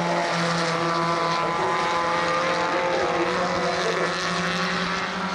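Lada 1300 touring-car four-cylinder engines running hard on track, a steady engine drone with several overlapping pitches from more than one car, easing slightly about four seconds in.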